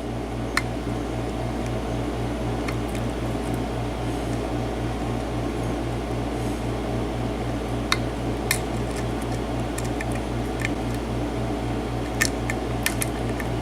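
Scattered faint metallic clicks of a lock pick working the pins of a six-pin US Lock Challenge mortise cylinder, with pin 6 refusing to set. Under them runs a steady low mechanical hum.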